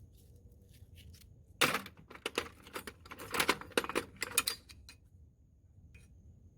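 Small metal items in a toolbox clinking and rattling as they are handled, a quick run of sharp clicks and clinks starting about a second and a half in and lasting about three seconds.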